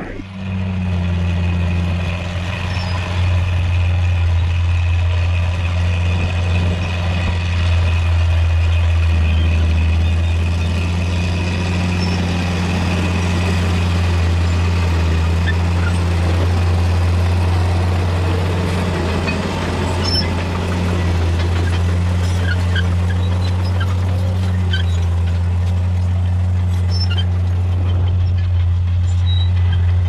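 Heavy diesel machinery engine running steadily with a deep hum. Faint clanks are scattered through the second half.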